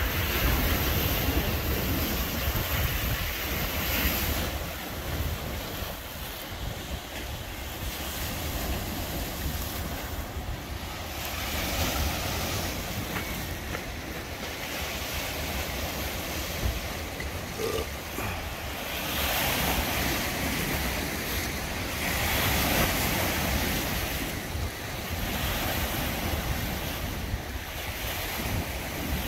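Choppy lake waves washing and breaking on a rocky shore, surging every few seconds, with wind buffeting the microphone in a steady deep rumble.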